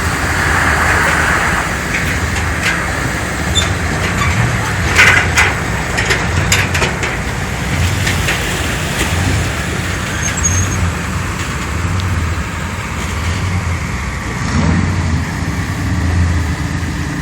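Engine running steadily with a low pulsing rumble, and a few sharp clanks about five to seven seconds in.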